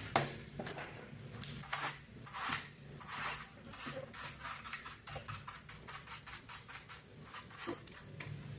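Mechanical keyboard keycaps and plastic parts being handled, giving irregular light clicks and scrapes, several a second.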